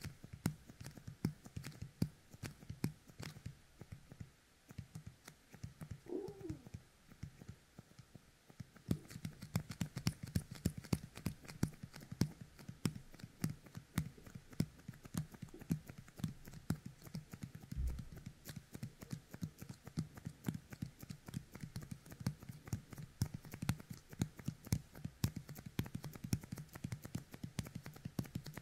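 Fingertips sticky with yōkai kemuri, the tacky 'goblin smoke' toy resin, pressed together and pulled apart right at a dummy head microphone's ear: rapid sticky clicks and crackles, sparser for a few seconds, then denser from about nine seconds in.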